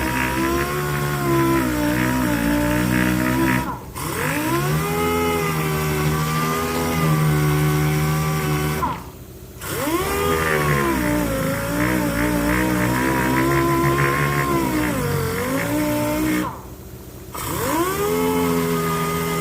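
Electric power sander working car body panels. Its motor pitch sags as it is bearing down and climbs back as it frees up, and it stops briefly three times.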